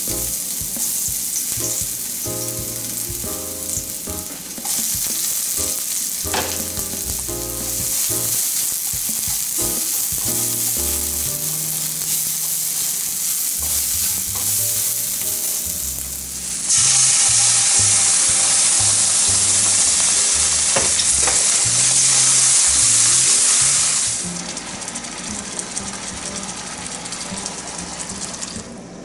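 Broccoli stir-frying in oil in a frying pan: steady loud sizzling with a few knocks of the spatula. The sizzle grows louder a little past halfway and eases again near the end, over background music with a bass line.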